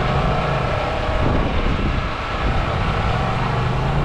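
Strong wind buffeting the microphone in an uneven low rumble, over a steady low motor hum.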